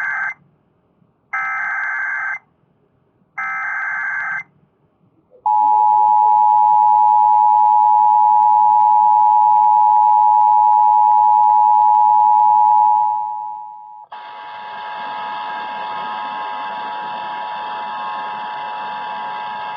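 Emergency Alert System broadcast signal: three one-second bursts of SAME header data tones, each about a second apart, then the loud steady two-tone EAS attention signal for about eight seconds. After that a steadier buzzy tone with many overtones runs until the spoken warning begins.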